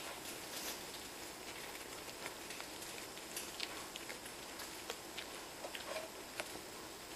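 Schipperke dog licking and sucking at a bottle: scattered small wet clicks and ticks over a steady hiss.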